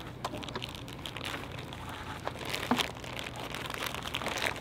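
Plastic packaging bag crinkling as it is handled and pulled open by hand, in scattered irregular crackles.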